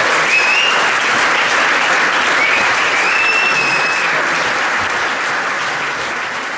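Audience applauding, with two high drawn-out whistles over the clapping. The applause begins to fade near the end.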